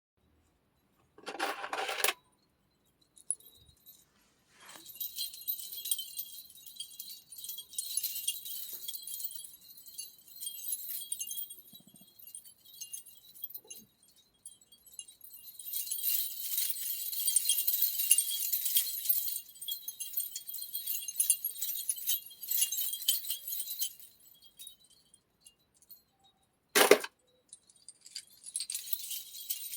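Foley chime effect: small metal pieces shaken together, a continuous thin, high tinkling jingle that swells and fades over many seconds. A short fuller burst comes near the start, and a single sharp knock, the loudest sound, comes near the end.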